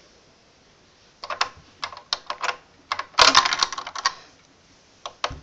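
Hard plastic Lego pieces clicking and rattling as a minifigure is handled and pushed into place in a brick model: a few separate clicks, then a dense flurry of clicks about three seconds in.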